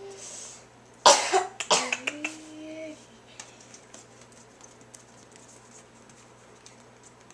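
A sharp cough about a second in, followed by a short voiced sound, then only faint scattered clicks.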